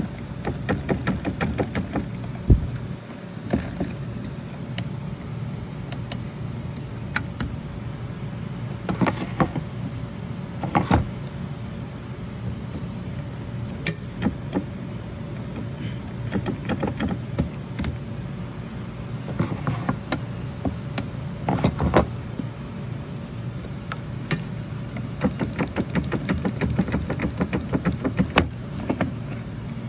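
Truck windscreen wiper arm being worked on its pivot shaft: repeated metallic clicks and rattles, in quick runs near the start and near the end, with a couple of sharper knocks, over a steady low mechanical hum.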